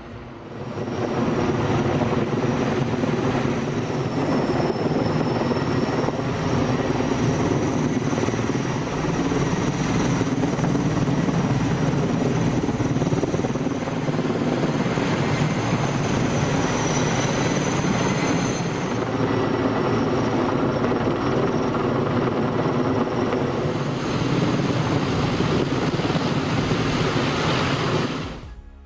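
Helicopter running steadily, rotor and engine, with a high thin whine that wavers slightly in pitch. It cuts off just before the end.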